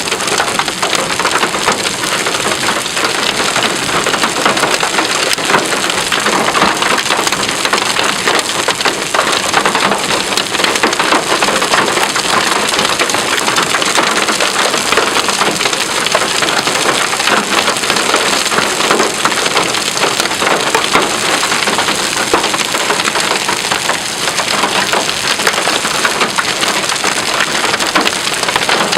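Heavy thunderstorm rain pouring down steadily, a dense hiss and crackle of countless drops striking a surface.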